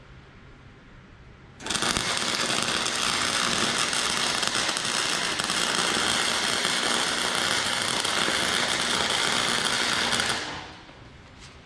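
Chicago Electric 120-volt AC welder laying a weld bead, joining a cut horseshoe arm into the groove of a horseshoe snowman. The arc strikes suddenly about two seconds in, runs with a steady crackle for about eight seconds, then stops near the end.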